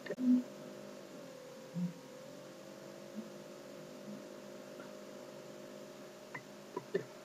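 Steady low electrical hum made of several tones, one of which dips briefly in pitch and returns about a second in. A short low blip comes just after the start, another about two seconds in, and a few faint clicks come near the end.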